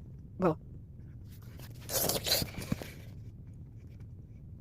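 A person reacting to very spicy food: a short 'bro', then about a second of harsh, noisy mouth and breath sounds in two or three rough bursts about two seconds in.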